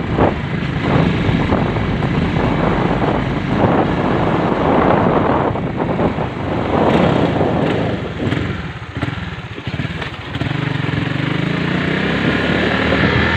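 Honda Sonic 150R motorcycle's single-cylinder engine running while being ridden. It eases off around eight to ten seconds in, then runs steadily again.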